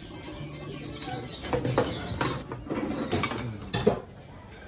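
Birds chirping, a quick run of high notes in the first second, while ceramic bowls and spoons clink together several times, the loudest clink near the end.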